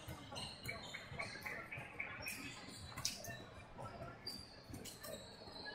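Faint, scattered high squeaks of shoes on an indoor court floor during a game, with a few light knocks.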